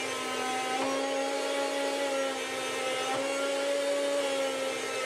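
Chef'sChoice 615 electric food slicer running, its motor and spinning blade giving a steady whine as pork is pushed through on the carriage. The pitch shifts slightly about a second in and again near three seconds.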